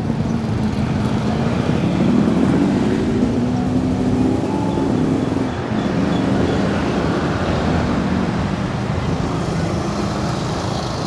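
Motorcycles and other road traffic passing close by, small engines humming, rising and falling in pitch as they go over the crossing.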